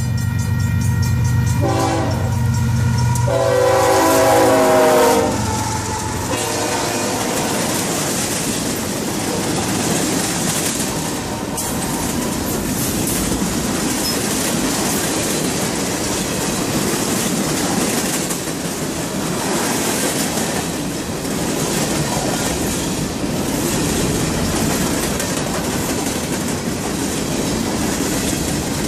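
Union Pacific freight locomotive 5268 sounds its horn in several blasts, the last one long, ending about five seconds in. Then the freight cars roll past with a steady rumble and clickety-clack of wheels over the rail joints.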